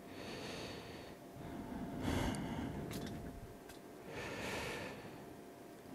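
Three soft breaths close to the microphone, with a few faint clicks of camera handling in between.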